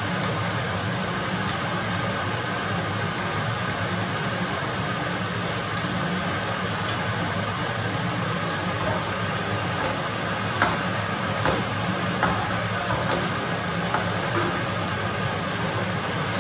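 Scallops pan-searing in bubbling fat in a frying pan: a steady sizzle, with a few light clicks and pops in the second half.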